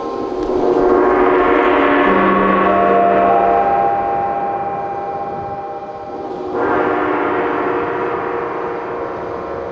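Large gong on a stand played with a mallet, swelling into a long ringing wash of many overlapping tones. It dies down, then swells up again about six and a half seconds in.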